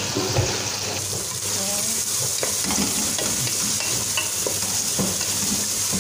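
Onions, tomatoes and whole spices sizzling in hot oil in a metal pot, stirred with a wooden spatula that scrapes and knocks against the pot now and then.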